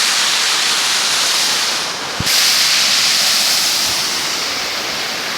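Waterfall: a steady rush of falling water, briefly muffled about two seconds in, with a single soft knock.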